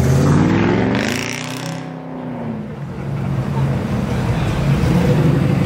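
A car engine running, its pitch rising and then falling once in the first few seconds before it settles into a steady run.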